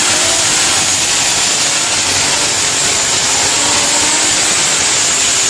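Competition pulling tractor's engine running flat out: a loud, steady rush of noise with a strong high hiss.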